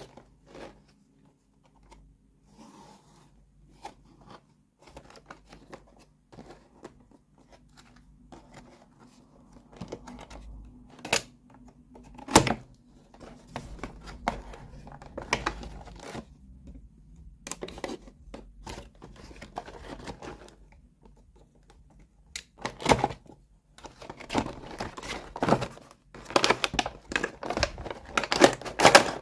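Small plastic toy pieces and packaging being handled: scattered clicks, taps and crinkling, growing busy and rapid near the end.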